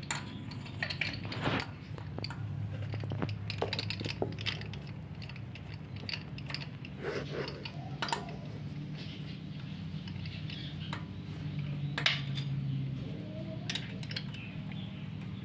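Small metallic clinks and taps as a spark plug socket and a new NGK spark plug are handled at the cylinder head of a twin-cylinder motorcycle engine, over a steady low hum.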